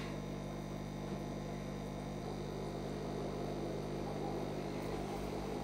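Steady hum of an aquarium air pump (aerator) running, pushing air through airline into two upturned soda-bottle brine shrimp hatcheries.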